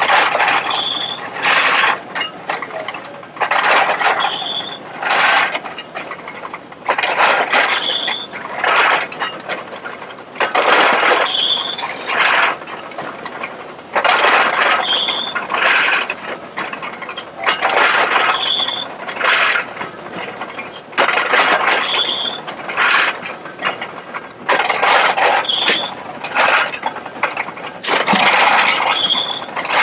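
Antique belt-driven stationary hay baler running, its mechanism clattering in a repeating cycle about every three and a half seconds, with a short high squeak at the start of each stroke.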